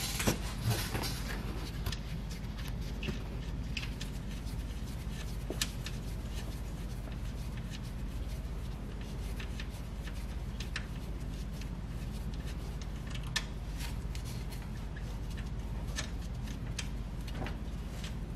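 Scattered light clicks and taps of a hand working the brake booster's mounting nuts loose at the firewall, over a steady low hum.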